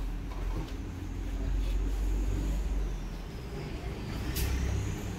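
Low steady rumble like a motor vehicle engine running, with a faint high thin tone that dips and rises again. A few soft rustles come from cloth trousers being laid down.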